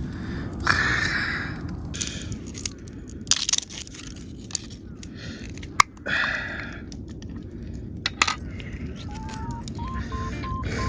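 Scraping and sharp clicks of a cooking utensil against a frying pan, over a steady low rumble. A simple melody starts near the end.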